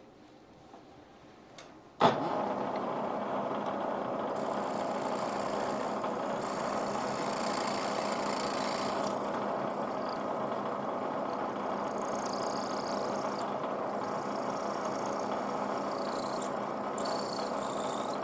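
A shop machine's motor switches on with a sharp click about two seconds in, then runs steadily with a noisy whir, with a hiss in the upper range that comes and goes.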